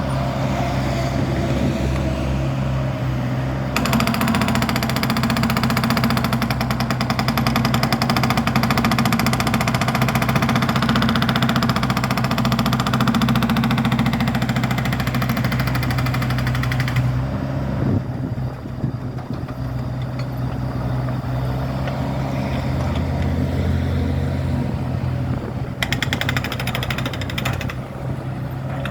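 Construction machinery engine running steadily, with a jackhammer hammering in a long, fast, even run from about four seconds in to about seventeen seconds, and again briefly near the end.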